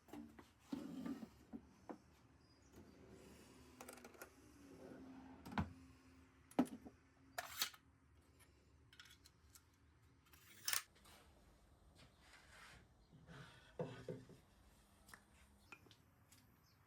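Scattered sharp clicks and knocks with light rubbing, as small hard objects are picked up, set down and handled. The loudest knocks come about five and a half, six and a half, seven and a half and eleven seconds in.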